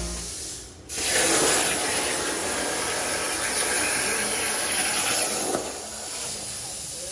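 CNC plasma cutting table torch running: a loud steady hiss that starts abruptly about a second in and drops to a softer hiss about five and a half seconds in. Background music fades out at the start.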